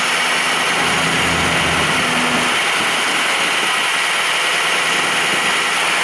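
Ford F-550 tow truck engine running steadily while the wrecker's hydraulics lower a car onto its wheels, with a faint steady tone for the first couple of seconds.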